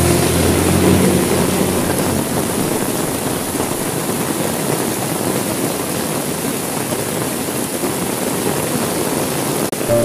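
Heavy rain beating steadily on window glass, with a low rumble of thunder fading away over the first two seconds. The sound cuts out for an instant just before the end.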